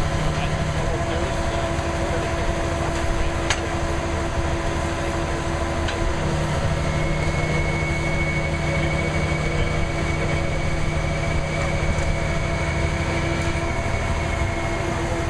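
An engine running steadily with a constant hum. A thin high whine joins it about seven seconds in and fades out shortly before the end, and there are a couple of sharp clicks early on.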